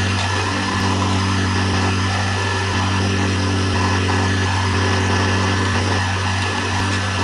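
Heavy diesel machinery at a concrete paving job, its engine running steadily at a constant speed with an even hum.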